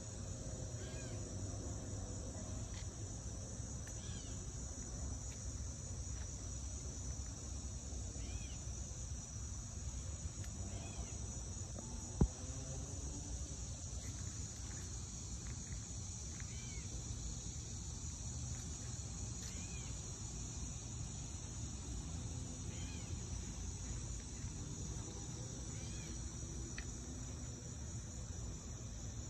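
Steady, high-pitched chorus of insects such as crickets in summer vegetation, with short chirps now and then and a low rumble beneath. A single sharp click about twelve seconds in.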